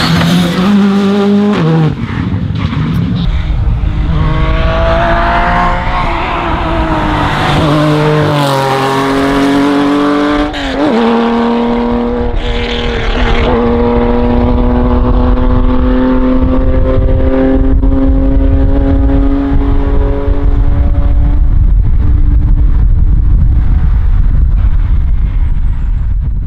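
Rally car engine revving hard through several quick upshifts, the pitch climbing and dropping back with each gear in the first dozen seconds. It then pulls one long gear with the note rising slowly.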